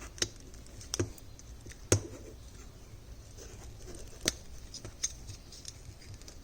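Handling clicks and taps from a plastic wiper-blade adapter being fitted onto a Rain-X wiper blade: about five sharp clicks spread over the few seconds, the loudest about two seconds in.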